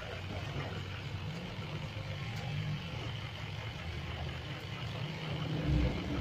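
Corded electric dog clippers running steadily, shearing through a Shih Tzu's matted coat. A louder low thud comes near the end.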